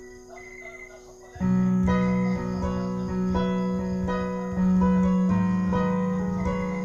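Kawai ES100 digital piano sounding sustained notes through its speakers: quiet at first, then a loud low note struck about a second and a half in, and another near the middle, each held and decaying.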